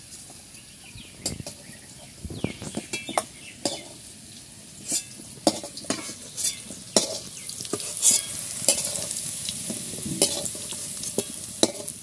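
Metal spatula scraping and knocking against a metal wok (kadai) and a steel bowl as fried potato pieces are lifted out, over a steady sizzle of hot oil. The knocks come irregularly, several to a few seconds apart, and are the loudest sounds.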